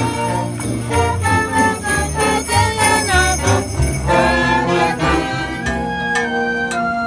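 A school concert band of flutes, trombones, saxophones and tubas playing a bright Christmas-style tune, with bells jingling along.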